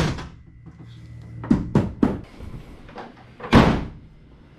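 Lid of an ABS plastic wheel-well truck-bed storage box being shut and latched: a knock at the start, three quick knocks and clicks about one and a half to two seconds in, and a louder thump about three and a half seconds in.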